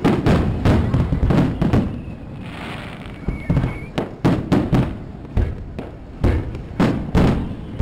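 Fireworks display: aerial shells bursting one after another in a dense volley of booms. The bangs ease off for about two seconds midway, then a new run of bursts follows.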